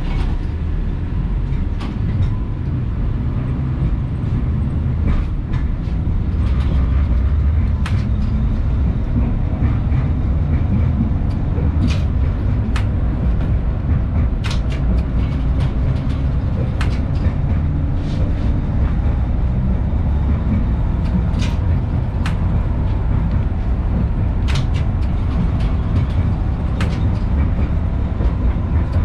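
LVS-86K tram running, heard from inside the passenger cabin: a steady low rumble of wheels on rails, with irregular sharp clicks and knocks.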